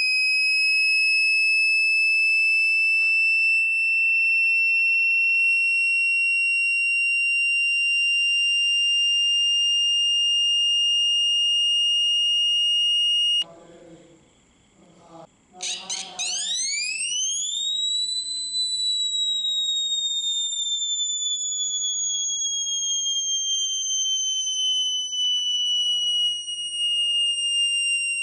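Home-built microcontroller-driven electronic factory siren sounding a high steady tone that creeps slowly up in pitch and cuts off suddenly about 13 seconds in. After a short pause it gives a few quick upward chirps, then winds up to a higher pitch and slowly falls away like a motor siren running down.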